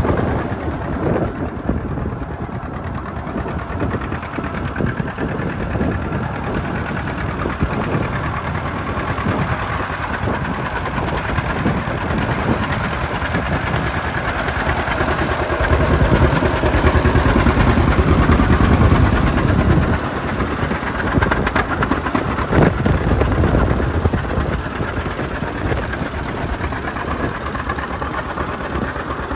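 John Deere AR tractor's two-cylinder engine running as the tractor is driven slowly around. The sound is steady and grows louder for a few seconds past the middle.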